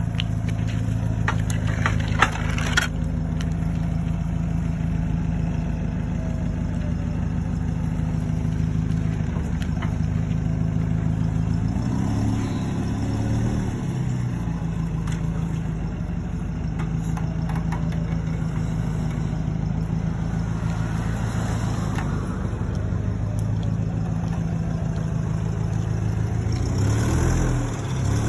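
Hyster forklift's engine running steadily as it drives with a loaded pallet on its forks, its pitch rising and falling briefly about halfway through and again near the end. A few sharp knocks in the first three seconds.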